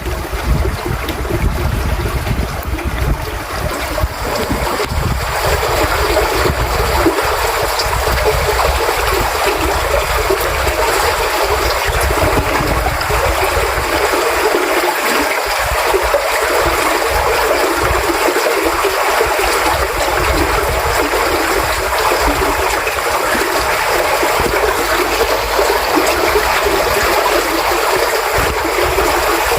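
Creek water running steadily over its bed, a continuous rushing. In the first few seconds a low rumble of wind on the microphone lies under it, then dies away.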